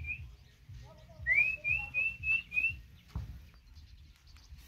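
A person whistling a quick run of short rising notes, about four a second, starting about a second in, calling a pet to its food.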